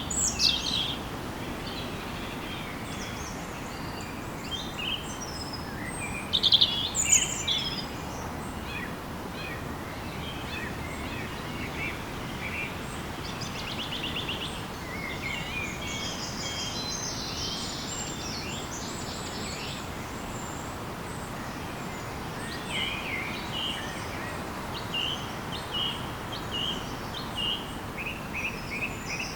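Several wild birds chirping and calling in short bursts over a steady background hiss, with the loudest calls at the start and about six seconds in.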